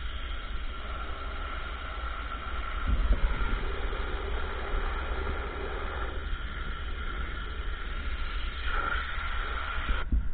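Ryobi RY14122 electric pressure washer running and spraying: a steady hiss of water with a steady whine from the pump, and a low rumble coming in about three seconds in.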